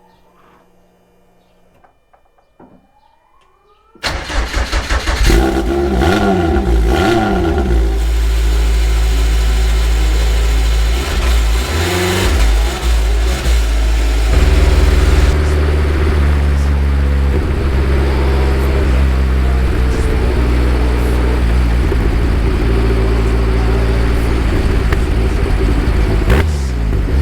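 Caterham Super Seven engine starting about four seconds in, revved in several uneven blips, then settling into a steady idle from about halfway through.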